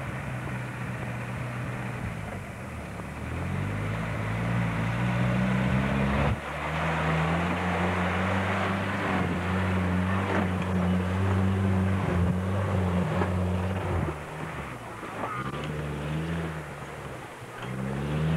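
UAZ-469-type off-roader's engine revving hard under load in mud: the pitch climbs, breaks off briefly about six seconds in, holds high, drops near fourteen seconds and then climbs again twice.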